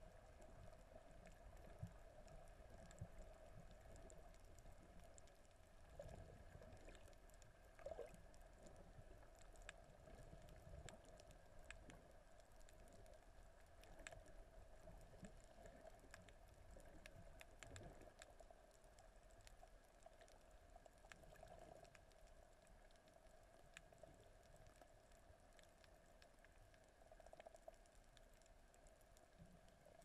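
Near silence: faint muffled underwater sound picked up through a camera's waterproof housing, with scattered faint clicks and light knocks that thin out toward the end.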